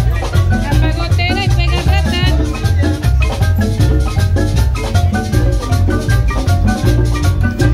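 Music with a steady, pulsing drum beat under melodic pitched percussion, and a short wavering high melody line about a second in.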